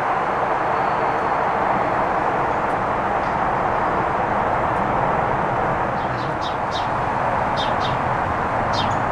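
A steady rushing noise, with short high bird chirps falling in pitch, in quick twos and threes, starting about six seconds in.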